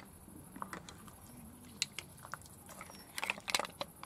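Cooked mussel shells clicking and clattering against each other and the plate as they are spooned out with a serving spoon: a few scattered clicks, then a quick cluster about three seconds in.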